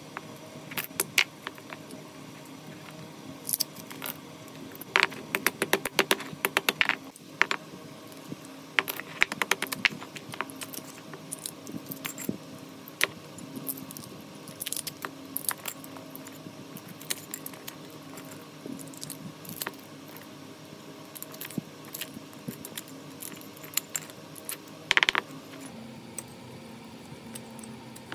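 Steel pliers clicking and scraping against a motor stator's steel laminations while burned copper windings are pulled out: scattered sharp metallic clicks and clinks, thickest about five to seven seconds in, with one louder clatter near the end.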